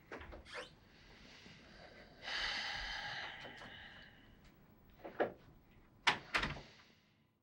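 A man's long sigh through the nose, about two seconds in, followed by a few sharp knocks near the end.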